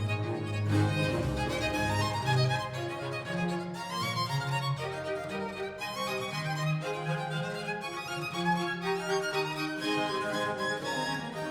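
Instrumental music played back through Elfton Vegas II four-way loudspeakers: a violin melody over low held string notes.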